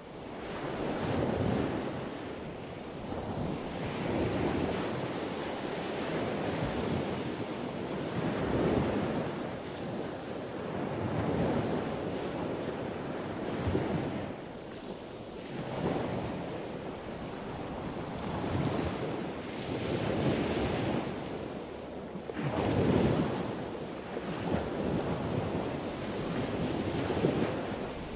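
Rushing noise that swells and fades every two to four seconds, with no tones in it.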